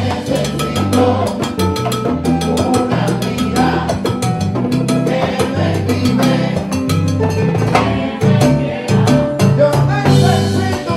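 Live Cuban salsa (timba) band playing: congas and drum kit keep a dense, driving rhythm over an electric bass line and keyboard.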